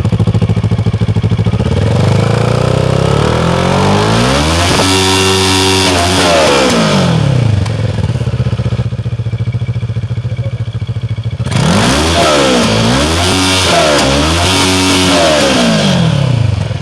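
CFMoto MT650's parallel-twin engine revved through its underbelly exhaust with the bike standing still. The revs climb slowly from idle, hold, then fall back, settle at idle for a few seconds, and then come three quick throttle blips before it drops back to idle. The sound is very loud and ear-splitting.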